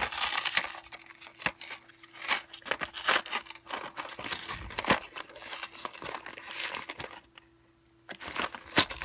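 Plastic blister packaging being pulled and torn open by hand: irregular crinkling and crackling with sharp clicks, pausing briefly about seven seconds in before starting again.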